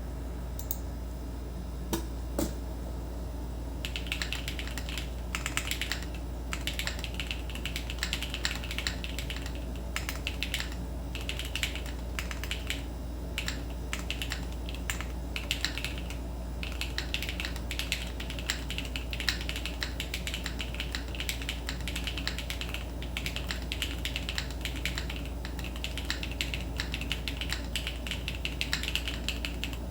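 Typing on a Neo70 mechanical keyboard with Kailh BCP switches, an FR4 plate, plate foam and PE foam, and Aifei WOB keycaps: a few single key presses, then from about four seconds in a fast, continuous run of key clacks with short pauses.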